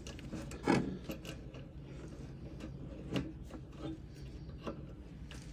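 Scattered clicks and rubbing of hands working electrical wires through a tight cord entry on an air compressor, over a low steady hum.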